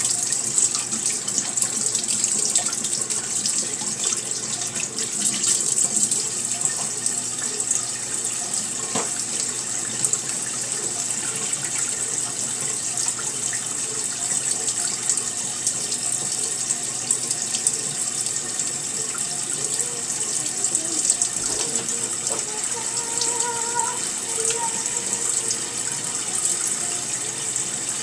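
Kitchen sink tap running steadily with water splashing into the sink.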